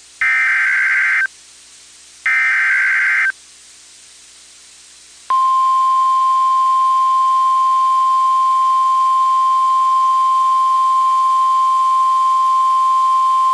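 Emergency Alert System header on NOAA Weather Radio: two short bursts of screeching SAME data, each about a second long and a second apart. A few seconds later comes the long, steady, single-pitch Weather Radio alert tone, which announces that a warning is about to be read.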